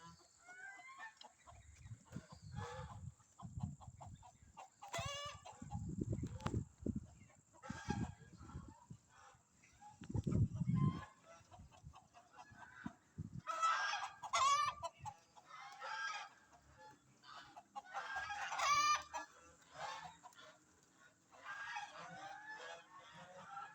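Chickens clucking and squawking again and again, with louder bursts of calls about halfway through and again near the end. Low rumbling bursts come in the first half.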